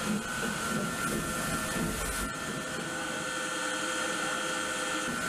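Shipboard waste-processing machinery, a shredder or pulper, running with a steady high whine and a rough mechanical hum.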